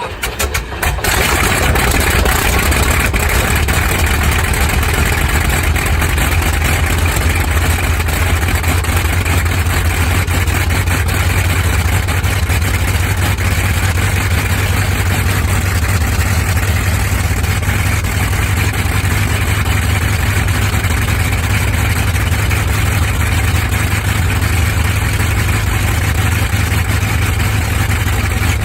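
Old propeller aircraft piston engine on a cold start: a few sharp firing stripes, then it catches about a second in and runs steadily with a heavy low rumble.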